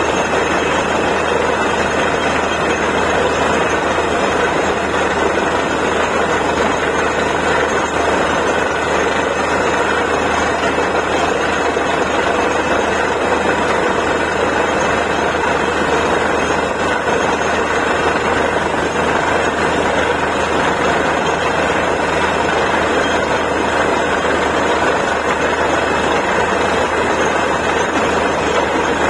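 Borewell drilling rig's engine running steadily under load, a loud, even mechanical drone with no change in pitch.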